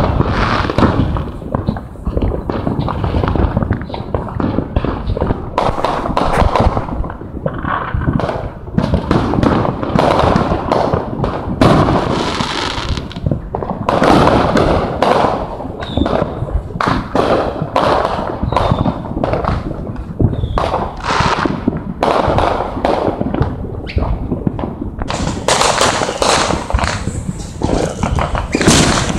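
Fireworks going off in a continuous barrage of overlapping bangs and crackles, with no pause.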